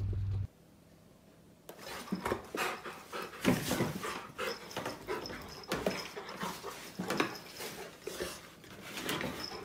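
Rottweiler panting in quick irregular bursts with short whimpering noises as it plays with a cat, starting about two seconds in.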